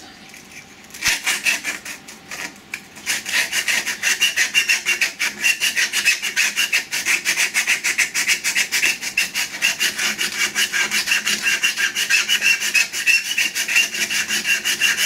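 Abrasive cloth being pulled rapidly back and forth through the thin saw cuts between the petals of a turned wooden tulip, a quick steady scratchy rubbing that starts about a second in and grows louder soon after.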